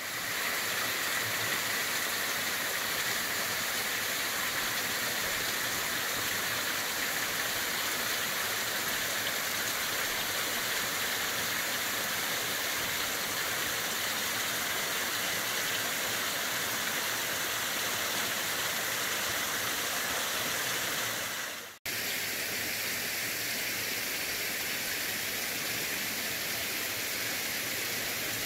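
Water rushing steadily, a continuous even roar of falling or flowing water. About three quarters of the way through it drops out for an instant and resumes a little duller.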